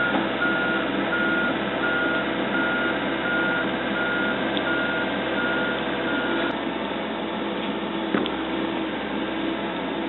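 Excavator's travel/reversing alarm beeping about twice a second over its running diesel engine; the beeping stops about six and a half seconds in while the engine keeps running.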